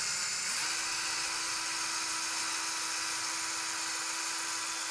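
Bosch NanoBlade cordless mini chainsaw running steadily while its small chain saws through a brick. It makes a thin, steady whine over a gritty hiss, and the whine steps up in pitch about half a second in.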